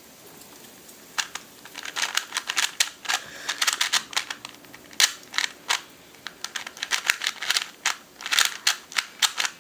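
Moyu Lingpo 3x3 speed cube being turned fast by hand: flurries of rapid plastic clicking and clacking as its layers snap round, starting about a second in, while it is tried for speed and corner cutting.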